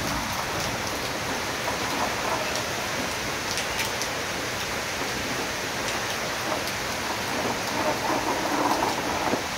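Steady tropical-storm downpour: heavy, wind-driven rain falling without a break.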